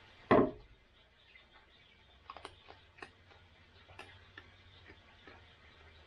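Raccoon eating dry cat food from a small dish on wooden deck boards: one sharp knock just after the start, then scattered light clicks as it eats.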